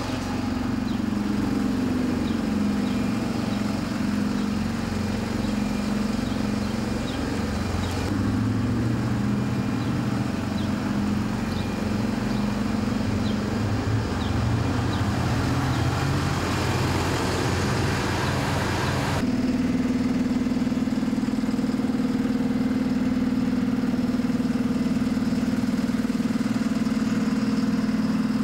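Engine of a Dotto TM970 articulated road train running as it drives and manoeuvres, its pitch rising and falling with speed. The sound changes abruptly twice, then the engine holds a steady pitch for the last several seconds.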